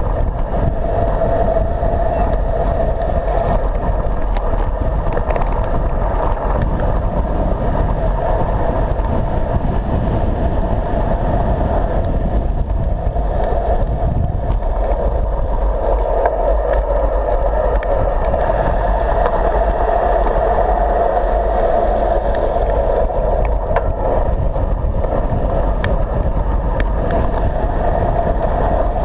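Steady rush of wind over a handlebar-mounted camera on a road bike descending at speed, with a deep rumble and the hum of tyres on asphalt. Now and then a faint click from a bump in the road.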